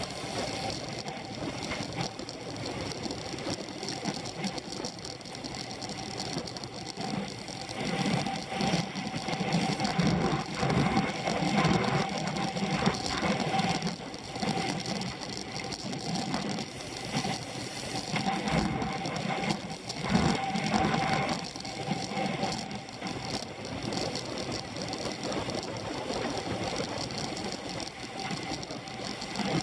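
A road racing bicycle riding in a pack, heard through its handlebar-mounted camera: a continuous rapid mechanical whirring and rattling of the drivetrain and wheels, with road and wind noise under a steady hum. It grows louder and rougher from about eight seconds in until about twenty-one seconds.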